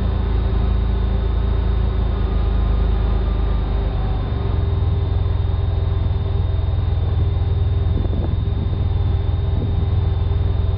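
Ford Explorer 4.0-litre V6 idling through a 2.25-inch Dynomax Super Turbo exhaust, a steady, loud, low exhaust note.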